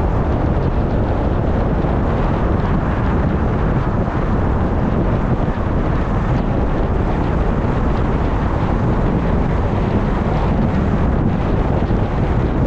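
Steady wind rumble on the microphone mixed with the noise of street traffic, with no single sound standing out.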